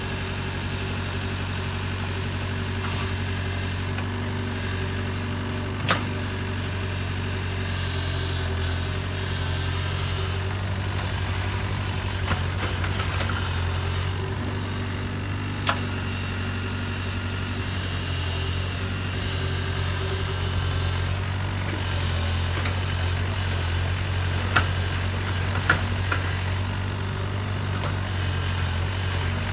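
Compact crawler excavator's diesel engine running steadily while the machine digs, with a few sharp knocks scattered through, about five times.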